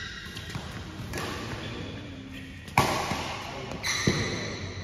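Badminton rackets striking the shuttlecock during a doubles rally: a sharp loud crack about three seconds in and another about a second later, echoing in the hall.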